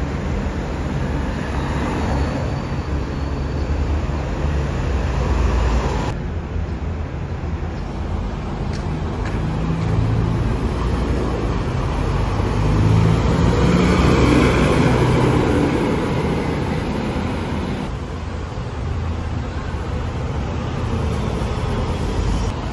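Street traffic with double-decker buses driving past: a steady low engine rumble and tyre noise, swelling to its loudest a little past the middle as a bus passes close by. The sound changes abruptly twice, at cuts between shots.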